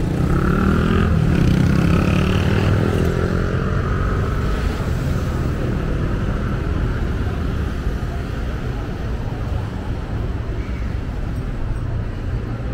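A road vehicle's engine passing close by, loudest a second or two in, over a steady low rumble of street traffic.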